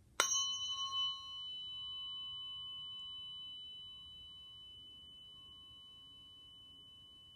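Tuning fork struck once just after the start, then ringing with clear high tones that fade slowly.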